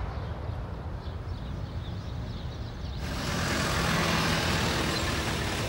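Pickup truck (ute) engine running as it drives along a street. About halfway through, the sound changes abruptly to louder engine noise with tyre hiss.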